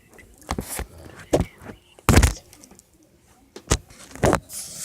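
About six irregular knocks and bumps, the loudest and longest about two seconds in.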